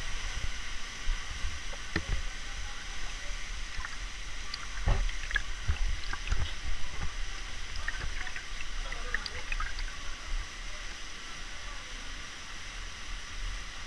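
Water gurgling and sloshing around a camera at the surface of a canyon pool, with scattered low thumps as it moves through the water, over the steady rush of a waterfall.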